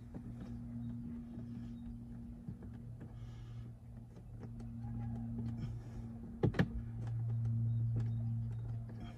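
Hands working at a BMW X5 E70's dashboard: scattered small clicks and scrapes, and two sharp knocks close together about two-thirds of the way through. A steady low hum runs underneath, swelling a little near the end.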